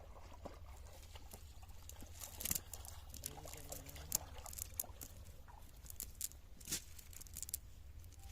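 Scattered small splashes and drips of water, irregular, with the loudest about two and a half and four seconds in.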